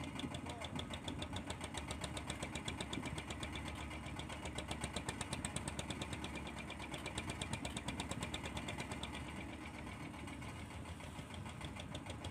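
Fishing boat's small inboard engine running steadily at low throttle, a rapid even beat, with wind and sea noise underneath.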